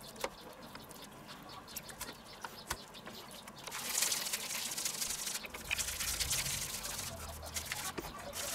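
Dry spice rub shaken from a paper bag onto raw pork loin steaks in a metal tray: a soft, steady pattering hiss that starts about four seconds in, after a few faint clicks of hands handling the meat.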